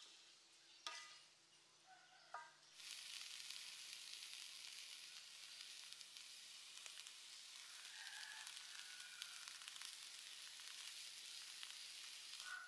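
Small prawns frying in a metal wok over a wood fire: a steady sizzle that starts suddenly about three seconds in and cuts off at the end. Before it, a couple of short, sharp sounds.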